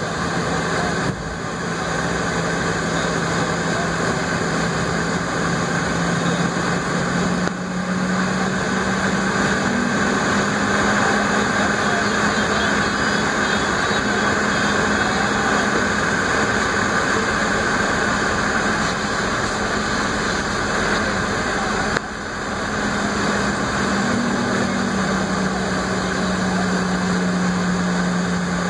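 Airliner cabin noise while taxiing: the jet engines run with a steady low hum that rises slightly in pitch about seven seconds in and again near the end, under an even rush of air.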